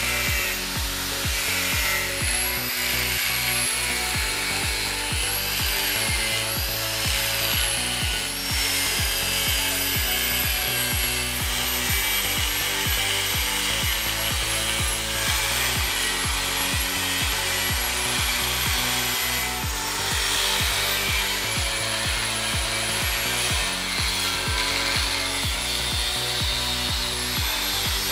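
Angle grinder cutting through a steel Tatra chassis tube, its high whine sagging and recovering as the disc bites into the metal, over background music with a steady beat.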